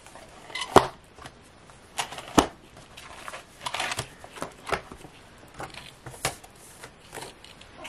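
Paper pages and plastic dividers being handled and turned in a ring-bound planner: soft rustling broken by a few sharp clicks and taps.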